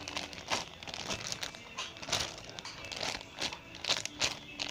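Irregular crinkling and rustling as a squishy toy is picked up and handled.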